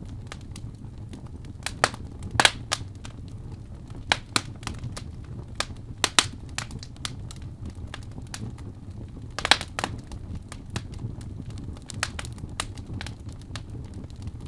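Wood fire burning in a fireplace: irregular crackles and sharp pops over a low, steady rumble of flame, with the loudest pops about two and a half, six and nine and a half seconds in.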